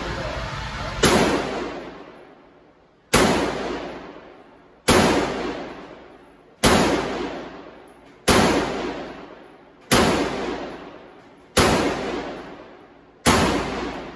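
Sig Sauer M400 AR pistol firing eight single shots at an even pace, about one every second and a half to two seconds. Each sharp report is followed by a long echoing decay off the walls of an indoor range.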